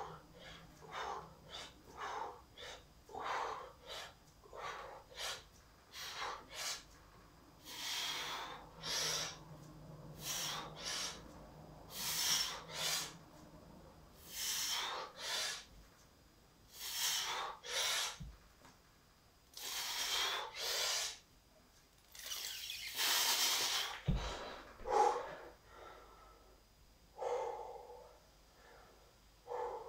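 A man breathing hard during push-ups. The breaths start short and quick, about two a second, then turn into long, loud, hissing exhales about a second each. A dull thump comes near the end, followed by softer breathing.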